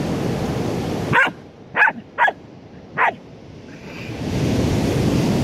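Small dog giving four short, high yipping barks over about two seconds while digging out a crab from a hole in beach sand.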